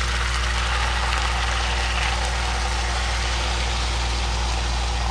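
Goat chunks and onion sizzling steadily as they land in hot ghee and tikka masala paste in a wok, over a strong steady low hum.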